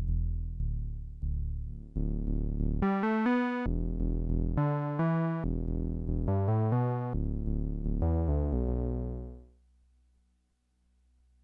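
Korg ARP Odyssey analogue synthesizer playing a run of bright, overtone-rich notes over a held low bass note, then fading out about nine and a half seconds in.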